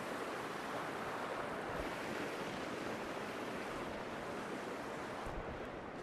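Small woodland waterfalls on a rocky stream rushing steadily as an even hiss, with wind through the trees mixed in. It eases slightly near the end.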